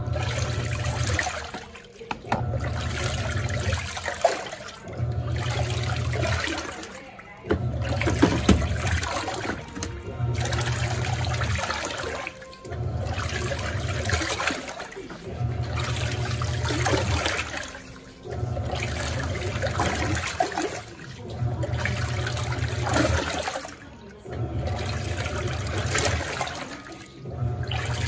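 Panasonic NA-F140B6 top-load washing machine agitating a full tub of water during a tank-cleaning cycle. The motor hums and the water churns in strokes of about two seconds, each followed by a short pause as the wash action reverses, about eleven times in a steady rhythm.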